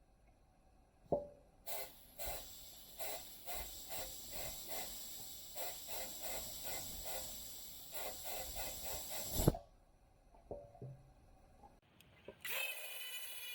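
A long hiss of a pressurised spray, pulsing quickly and unevenly, lasting about eight seconds between two knocks. Near the end a steady pitched machine sound starts.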